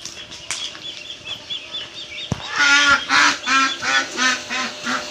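A duck quacking in a rapid run of about eight loud quacks, about three a second, after a quick series of high, thin chirps from a small bird.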